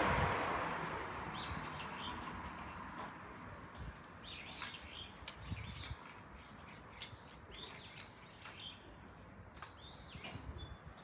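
Small birds chirping in short runs of high calls, four or five times, over a rushing noise that fades away in the first couple of seconds. A few faint clicks come in between.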